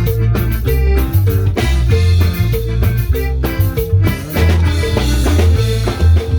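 Upbeat band music with a prominent bass line, drums and guitar, played as a jam.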